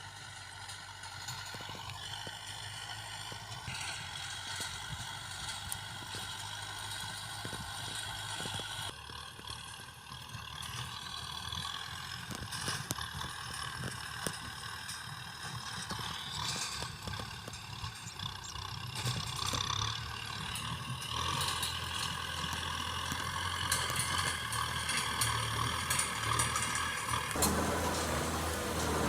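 Vehicle engines running, with clicks and rattles; the sound changes abruptly several times.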